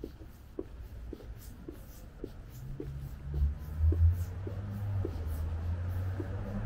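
Footsteps at a steady walking pace, about two steps a second. A low traffic rumble builds from about halfway and is loudest about four seconds in.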